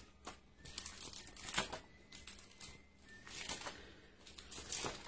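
Stiff plastic-sleeved photo album pages being turned by hand: irregular rustles and sharp slaps of the pages, the loudest about one and a half seconds in.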